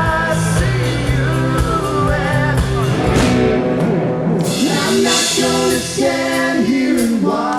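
Music with a singer holding and sliding between notes; the low bass part drops out about four seconds in.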